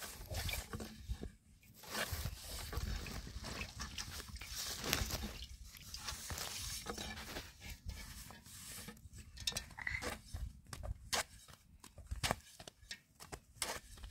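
A thin wooden rolling pin rolling out flatbread dough on a wooden board. In the second half it gives a run of short, light knocks, about two a second.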